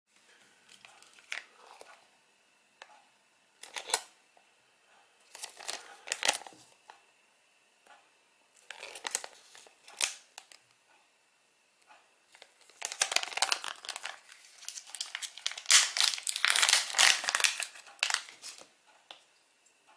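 Plastic retail packet crinkling as it is handled and torn open: a few short separate crinkles at first, then several seconds of dense crinkling and tearing in the second half.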